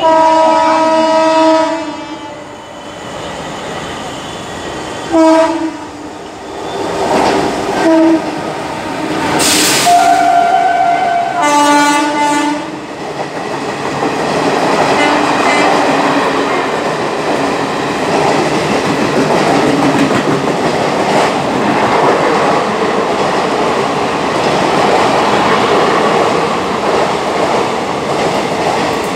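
Express train sounding its horn as it comes through at speed: one long blast, then several short blasts. From about halfway through, the loud steady rumble and clickety-clack of its coaches' wheels running past on the track.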